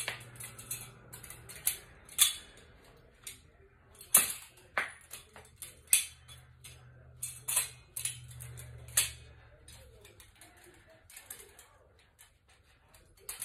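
Butterfly knife being flipped: irregular sharp metallic clacks as the swinging handles strike each other and the blade's pins. The clacks are loudest about two, four, six and nine seconds in and grow sparse near the end.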